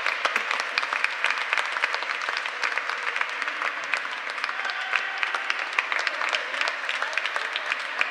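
Concert audience applauding, a dense, steady clapping of many hands with no let-up.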